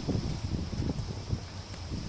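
Storm wind buffeting the microphone: a low rumble that eases off in a brief lull.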